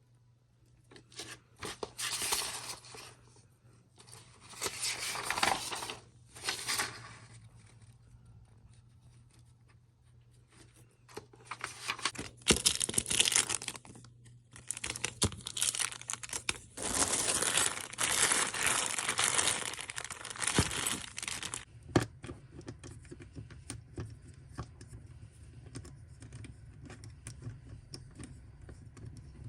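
Packaging being torn open and crinkled while a package is unboxed, in several rustling bursts, the longest in the second half, followed by light handling clicks.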